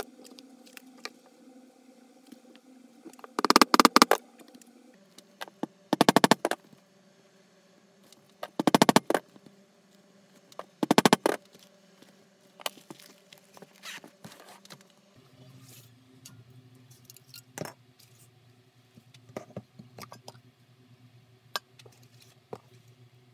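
A bag zipper being run quickly along its teeth, four rattling runs of rapid clicks a couple of seconds apart, then softer rustling and ticks as the bag is handled.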